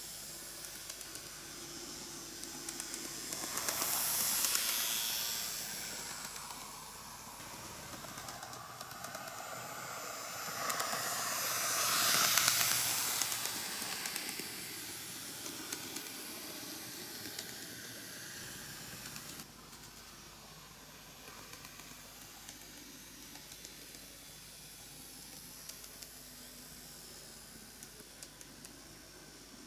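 N-gauge KATO EF81 300 model electric locomotive running on plastic track: a steady whirr of its small motor and wheels with light clicks over the rail joints, growing louder twice as it passes close by.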